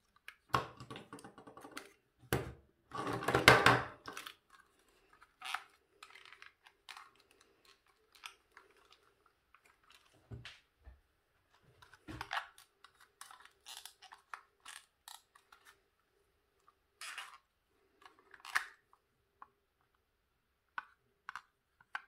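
Hands handling and turning over a plastic Merten Argus 180 motion-sensor module and its metal flush-mount frame: irregular clicks, rattles and rustling, loudest in a dense crunchy stretch in the first four seconds. A faint steady hum runs underneath.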